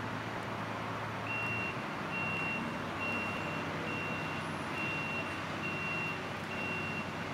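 Vehicle reversing alarm beeping at an even pace, a little faster than once a second, starting about a second in, over steady outdoor background noise.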